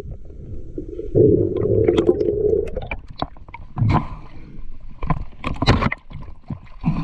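Water sloshing and gurgling against a camera held underwater, with a stretch of bubbling early on and several sharp knocks and low thumps in the second half.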